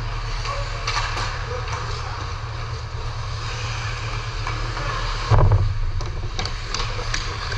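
Ice hockey game sound in the rink: a steady low rumble and hiss, a few sharp clacks, and one heavy thud about five seconds in, the loudest moment.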